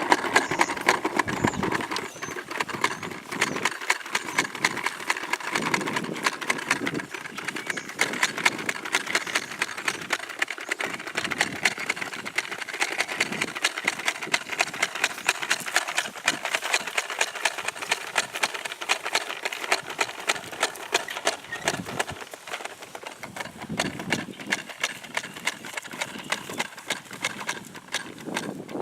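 Push lawnmower being rolled along, its wheels and mechanism clicking rapidly and evenly.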